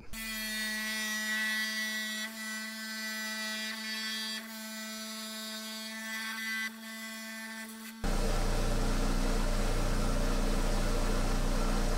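A 10-inch Hi Tech Diamond lapidary saw with a thin sintered diamond blade is running steadily with a pitched hum while a septarian nodule is fed through it by hand. About eight seconds in, the sound changes abruptly to a louder, rougher steady running noise.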